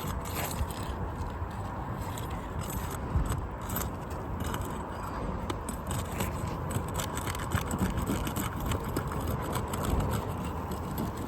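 A metal shingle-removal tool (a 'snake tool') scraping and clicking as it is worked under asphalt roof shingles, breaking their seals, with many short irregular scrapes and ticks over a steady low rumble.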